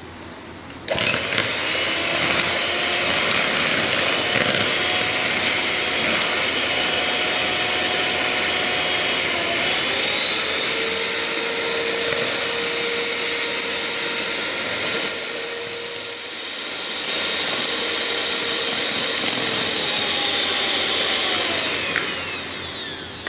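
Electric hand mixer running, its beaters whisking eggs in a plastic bowl until frothy: a steady motor whine that starts about a second in, dips briefly past the middle, and falls in pitch as it winds down near the end.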